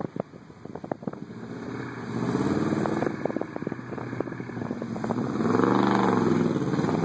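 1979 Ford Bronco's V8 engine revving as the truck climbs out of a mud hole. A few sharp knocks and clicks come in the first second. The engine comes up from about two seconds in and rises and falls in one strong rev near the end.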